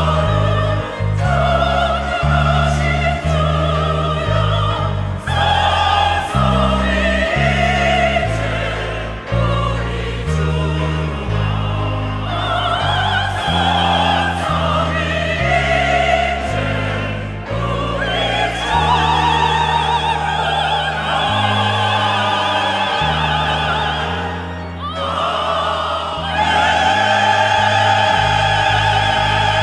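Church choir singing a sacred anthem in parts, with vibrato on the upper voices, over instrumental accompaniment. Near the end it settles onto a long held chord.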